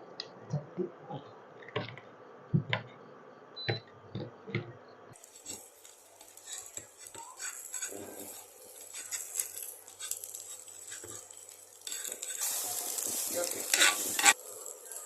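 A spoon clinking against a bowl in irregular knocks as egg batter is stirred. About five seconds in, an omelette starts sizzling in a hot pan, with scattered scrapes and taps of a utensil. The sizzle grows louder near the end.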